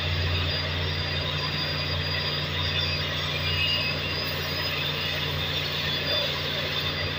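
Electric arc welding crackling steadily on a cracked main-engine exhaust valve housing, over a steady low machinery hum.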